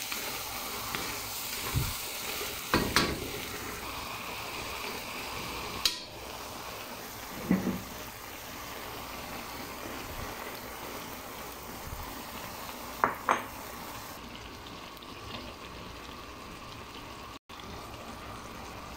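Vegetables sizzling steadily as they stir-fry in a metal wok, with several sharp knocks of a utensil against the pan.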